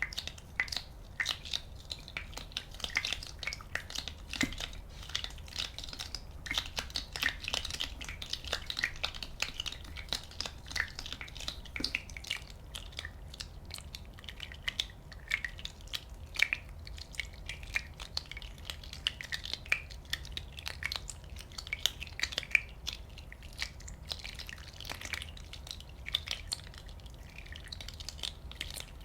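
Many small bubbles popping in a dense, irregular crackle of tiny clicks, with a faint steady low hum underneath.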